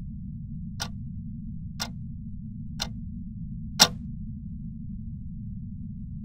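Sharp clock-like ticks, one a second, with the last tick louder than the others, over a steady low hum.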